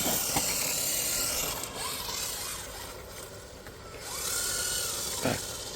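Electric RC car running, its motor whine rising and falling in pitch with the throttle, over the hiss of tyres scrubbing across the ground. The sound swells twice, near the start and again about four seconds in.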